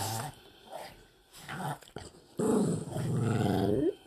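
A pet dog growling: one long, low growl of about a second and a half, coming a little past halfway, after a few short quieter sounds.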